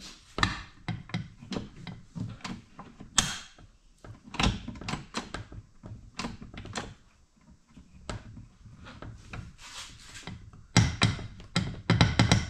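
Repeated knocks and clunks of a 1985 Mercury 9.8 HP outboard's lower unit being pushed and rocked against the midsection as it is fitted back on, with a quick run of knocks near the end.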